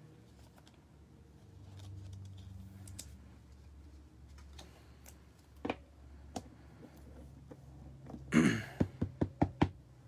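Cards and a hard plastic card case being handled on a table: a few scattered soft clicks, then near the end a scuff followed by about six sharp clicks or taps in quick succession as the autographed card is fitted into the clear case.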